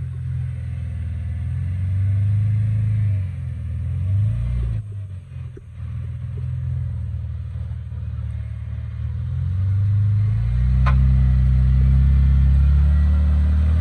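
Jeep Wrangler engine running at low revs as it crawls over boulders, getting louder in the last few seconds as it is given more throttle. A single sharp knock comes about 11 seconds in.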